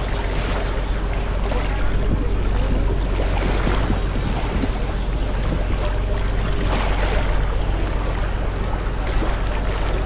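Busy beach ambience: a steady low wind rumble on the microphone over the wash of surf, with a faint murmur of beachgoers' voices.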